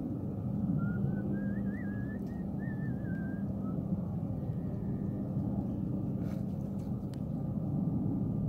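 A person whistling a wavering, warbling tune for the first three seconds or so, over a steady low rumble. A couple of sharp clicks come near the end.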